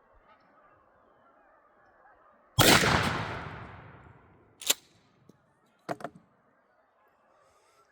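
A single 12-gauge shotgun blast from a Mossberg 500 firing a 3-inch turkey load, its report rolling away for over a second. A few sharp clacks follow.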